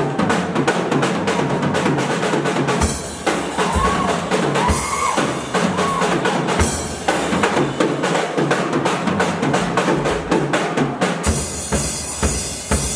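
Small band playing live, with a busy drum kit of kick and snare hits driving the passage and a melody line sliding in pitch over it.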